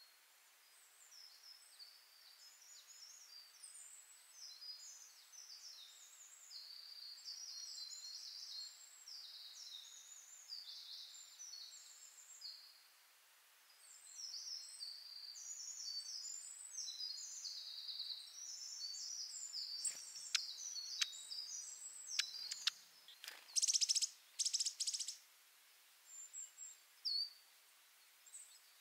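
Small songbirds chirping and twittering in quick, high runs of notes, with a brief lull partway through. About three-quarters of the way in come a few sharp clicks and a short run of loud, harsh bursts.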